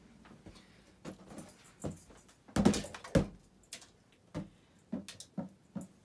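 Rubber balloon bumping and slapping against the spinning blades of a Hunter Low Profile Plus ceiling fan, an irregular run of soft knocks with the loudest cluster about halfway through, over the fan motor's faint steady hum.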